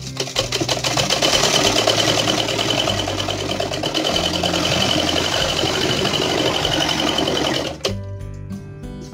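Domestic sewing machine running at a steady fast pace, its needle and feed mechanism clattering evenly as it stitches through fabric, then stopping abruptly near the end. Soft background music plays underneath.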